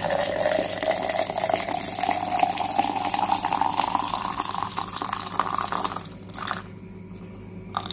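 Hot water, boiled and left to rest briefly, poured in a steady stream into a container of herbs. The pitch of the pour rises slowly as the vessel fills, and the pour stops about six seconds in.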